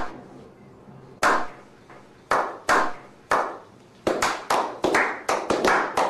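Slow hand clapping that speeds up: single claps about a second apart at first, then quickening to several a second from about four seconds in.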